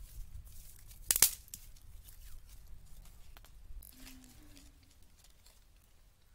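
Dry sticks and bark strips rustling, tearing and snapping as they are handled and laid onto a small, smoking kindling fire, with one loud crack about a second in.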